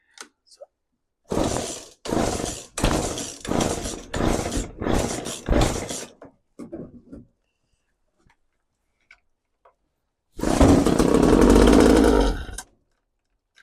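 McCulloch 3516 two-stroke chainsaw being pull-started on starting fluid: about eight quick pulls of the recoil starter, then about ten seconds in the engine fires, runs for about two seconds and dies. It is a sign of life: the engine fires without its fuel system.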